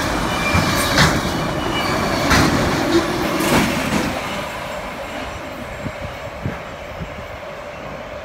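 Empty autorack freight cars rolling past, steel wheels clicking over the rail joints and crossing. The last car goes by about four seconds in, and the rumble then fades steadily as the train moves away.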